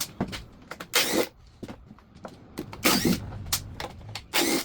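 Hand tools working the 10 mm bolts on a Subaru EJ251 engine's front timing cover: three short noisy bursts about a second and a half apart, with small metallic clicks between them.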